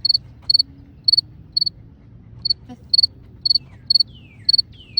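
A cricket chirping steadily, short high chirps about twice a second, with a couple of brief falling whistles near the end.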